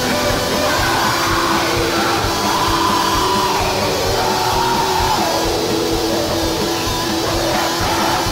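Heavy metal song: distorted guitars over rapid drumming, with a wavering melody line riding above.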